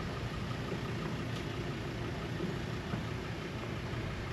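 Steady low rumble and hiss of outdoor background noise, with no distinct events.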